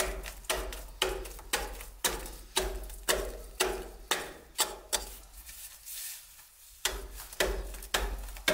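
A hand tool chopping into a block of soft stone to carve out a stove, with sharp strikes about two a second and a short pause just past the middle.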